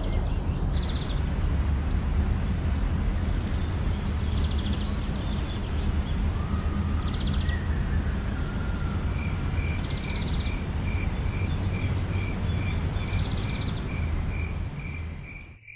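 Several birds calling in short chirps and trills over a steady rushing background noise. From about halfway through, a high note repeats about twice a second, and everything fades out at the very end.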